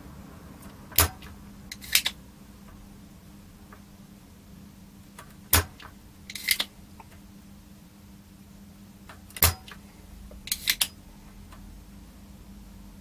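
Desoldering tool at work on circuit-board IC pins: three sharp clicks, each followed about a second later by a short hissy snap, over a steady low hum.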